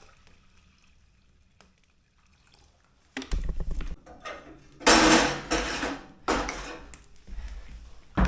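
A quiet moment, then from about three seconds in, a few bursts of metal clattering and scraping around a freshly lit stove, the loudest near the middle, ending in a sharp click.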